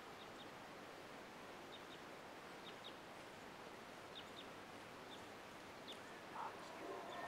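Quiet outdoor ambience: a steady soft hiss with scattered faint, short, high chirps.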